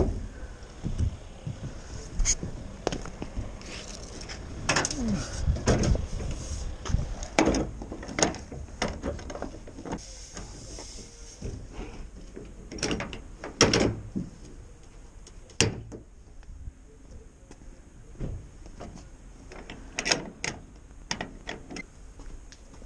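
Irregular metal clanks, knocks and rattles as the hinged side panel and latches of a 1993 Iveco Turbo Daily's dropside load bed are handled, with the loudest knocks about five seconds in and again near the middle.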